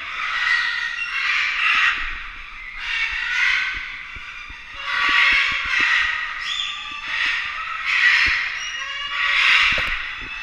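Pet parrot squawking: a run of harsh, drawn-out squawks, roughly one a second, some in close pairs.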